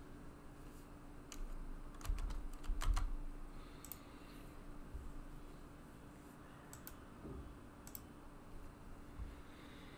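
Typing on a computer keyboard with a few mouse clicks: a quick run of keystrokes about two seconds in, then single scattered taps, over a faint steady hum.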